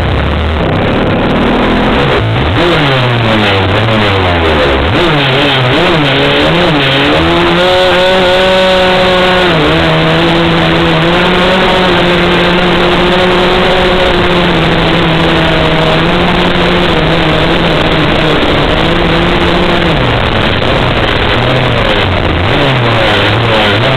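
Small engine of a radio-controlled car running hard as it drives. It revs up and down in pitch for the first several seconds, holds a fairly steady pitch for about ten seconds, then drops and rises again near the end.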